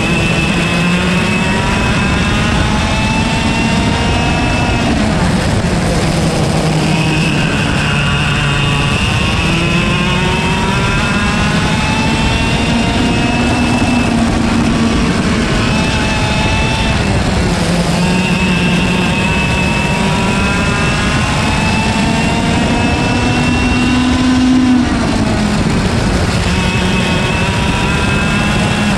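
Single-speed IAME KA100 two-stroke kart engine at race pace. It repeatedly winds up in pitch over several seconds down each straight, then drops off sharply under braking for each corner, about four times.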